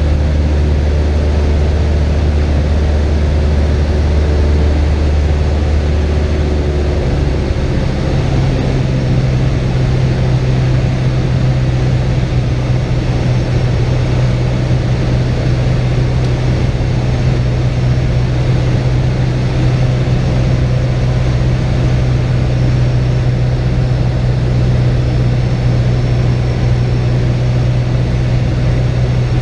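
Cessna 172's piston engine and propeller droning steadily in flight, heard from inside the cockpit. Its low note shifts to a higher tone about seven seconds in.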